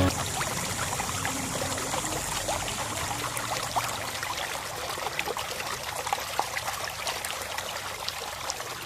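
Water trickling and dripping, with many small scattered drops, easing off slowly toward the end.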